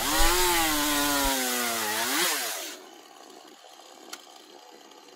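Stihl 018 two-stroke chainsaw cutting through a log at full throttle, its engine note slowly sinking as the chain bites into the wood. About two seconds in it briefly revs up, then drops off, and the rest is much quieter with a single faint click near the end.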